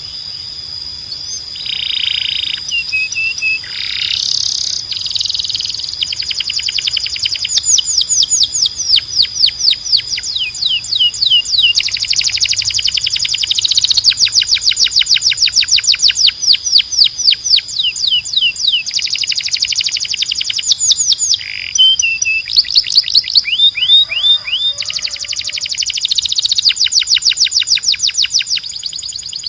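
Canary singing: a long song of fast rolling trills, each a rapid run of repeated notes, changing to a new trill every second or few with brief breaks between phrases. A steady high-pitched tone runs underneath.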